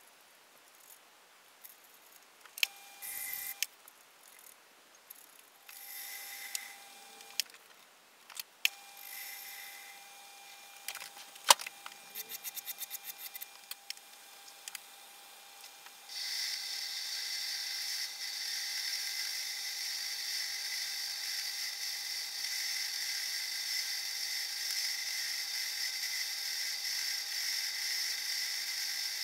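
Metal lathe turning an aluminium bar: short stop-start runs of the machine with clicks and a sharp knock in the first half, then from about sixteen seconds in it runs steadily with an even mechanical whir while grooves are cut into the bar.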